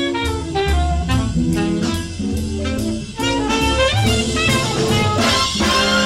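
Instrumental background music in a jazzy style: horns play a melody over bass and drums.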